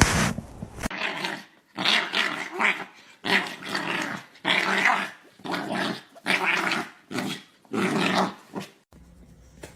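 A dog growling in a series of about seven short, rough bursts.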